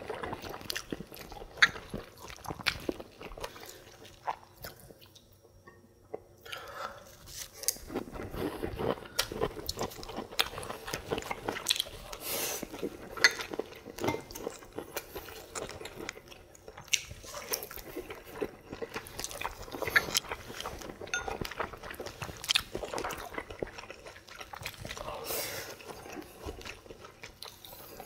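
Close-miked eating: two people chewing and making wet mouth sounds, with short sharp clicks of chopsticks and spoons against ceramic bowls and plates. There is a brief quieter lull about five seconds in.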